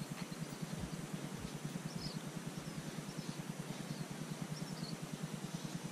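A steady low drone of an idling engine, pulsing rapidly, with a few faint high bird chirps over it.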